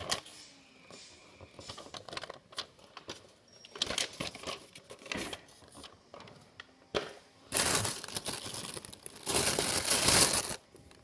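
A paper banknote crinkling and rustling close to the microphone as it is handled, in several bursts, the longest two in the second half.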